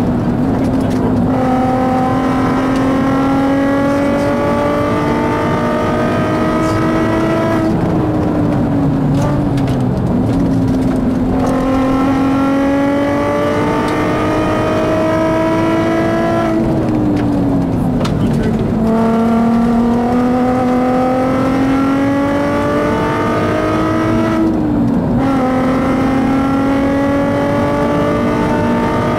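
Volkswagen Golf MK4 R32's 3.2-litre VR6 engine pulling hard, heard from inside the car. Its pitch climbs slowly through long pulls and is broken three or four times by a lift off the throttle, where the note drops before climbing again.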